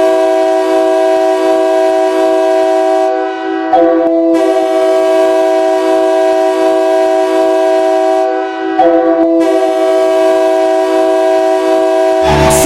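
Ice hockey goal horn, a multi-tone air horn sounding a chord in three long, loud blasts of about four seconds each, each one starting as the last fades. Music comes in near the end.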